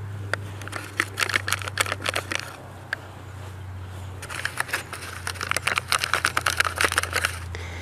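Thin black plastic seedling cell tray crinkling and crackling as it is squeezed to pop asparagus seedlings out of their cells, in two bouts of rapid crackles. A steady low hum runs underneath.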